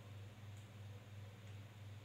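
Faint room tone with a steady low hum and two faint ticks as thin wires are handled and twisted together by hand.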